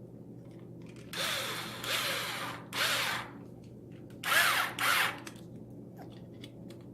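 Power driver whirring in about five short bursts, driving an M4 screw down into a lock nut held with a wrench.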